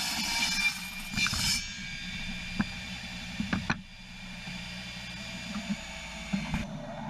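Table saw ripping a board lengthwise along the fence, the cutting noise ending about a second and a half in; the saw then runs with no wood in the blade, with a few sharp knocks of boards being handled.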